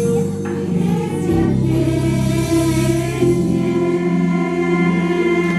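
Choir singing, holding long sustained notes.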